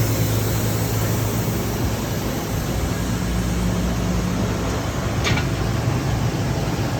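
Steady hum and noise of running machine-shop machinery, with a short click about five seconds in.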